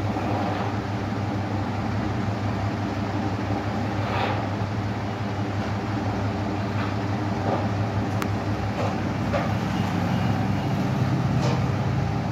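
Steady low hum of a motor vehicle's engine running nearby, with a few faint short clicks and scrapes over it.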